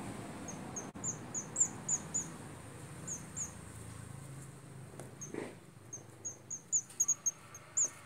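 Swiftlets giving short, high twittering chirps in irregular runs at the nest, over a low rumble for the first few seconds.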